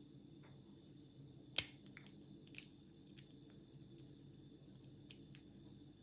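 Lock pick and tension wrench clicking against the pins of a five-pin euro cylinder lock during picking: scattered light metallic clicks, the sharpest about a second and a half in, as the core slips in and out of false sets.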